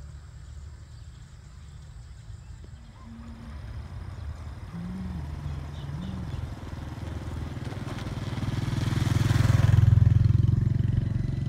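A small motorbike engine approaching, passing close about nine to ten seconds in, and moving away again, its hum growing louder and then fading.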